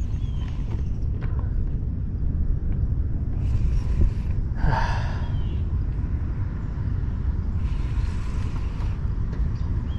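Wind buffeting the microphone in a steady low rumble, with a short whoosh about halfway through.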